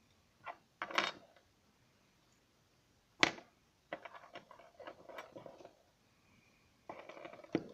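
Small hard objects clicking and clattering, as when metal watchmaker's tools and parts are picked up and set down on a bench. There is a single sharp tap a little after three seconds in, then runs of quick light clicks.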